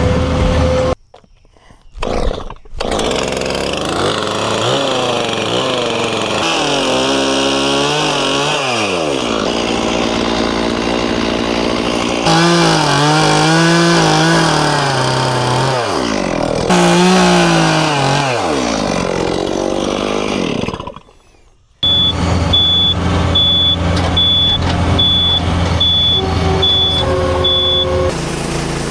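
Gasoline engine of a portable band sawmill running, its pitch rising and falling as the load changes during the cut, broken twice by abrupt cuts. Over the last part an evenly spaced high electronic beeping sounds along with the engine.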